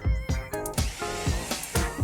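Bouncy children's cartoon music with a steady thumping beat and short synth notes. A soft hissing sound runs through it for about a second in the middle.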